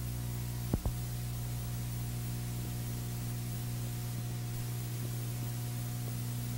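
Steady electrical hum with a layer of tape hiss on an old videotape transfer, with two sharp clicks a little under a second in.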